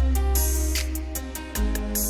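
Background music with a deep bass line under a melody of held notes.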